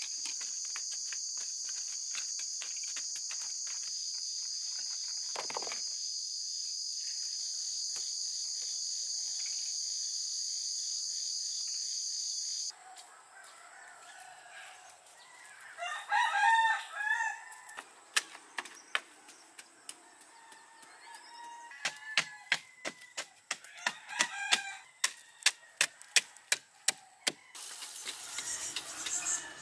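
Crickets chirring in a steady high drone, with faint knocks of a digging stick working soil. After an abrupt change, a rooster crows once, birds call, and a wooden digging stick strikes hard dirt in a run of sharp knocks, about two a second.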